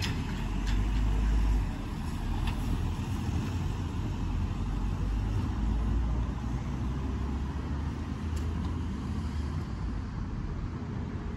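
Street background noise: a low rumble of road traffic, with a few faint clicks.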